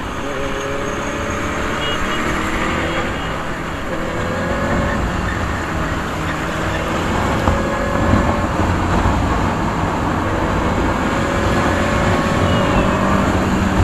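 Benelli 600i's inline-four engine on its stock exhaust, accelerating in repeated rising pulls as through the gears, over steady road traffic noise.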